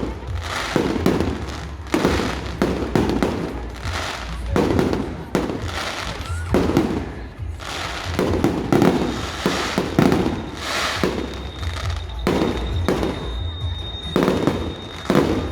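Fireworks and firecrackers going off, a dozen or so sharp bangs at irregular intervals over a continuous low rumble.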